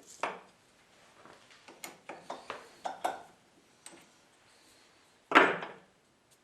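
Small metal parts and tools handled on a workbench: a string of light clicks and knocks, then one much louder clunk about five seconds in.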